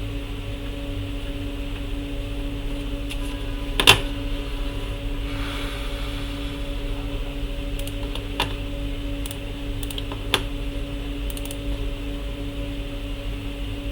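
A few sparse clicks of a computer keyboard, the loudest about four seconds in, over a steady electrical hum.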